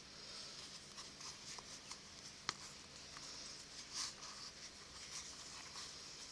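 Faint rustling and scraping of a leather lace being drawn through punched holes in a leather pouch, with scattered small clicks and one sharp click about two and a half seconds in.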